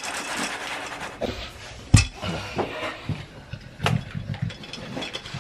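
An American bully dog eating dry kibble from its food bowl: irregular crunching and small clicks against the bowl, with two sharper knocks about two and four seconds in.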